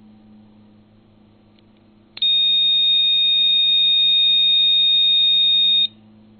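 Homemade Little Wizard II metal-detecting pinpointer's buzzer sounding one steady high-pitched electronic beep, starting about two seconds in, lasting about three and a half seconds and cutting off suddenly.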